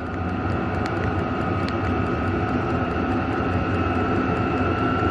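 Hcalory diesel air heater running, its fan giving a steady whir with a constant high whine over a low hum. A couple of faint ticks come from the fuel pump pulsing as the pump rate is turned up.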